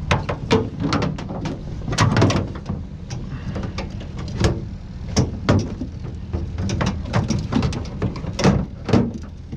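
A run of irregular knocks and clunks from gear being handled, over a low steady rumble.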